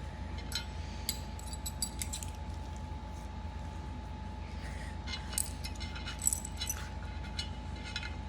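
Small metal assembly hardware (screws, a washer, Allen wrenches) clinking and jangling as it is handled, in two bursts of light clicks: one in the first two seconds and another from about five to seven seconds in. A steady low hum sits underneath.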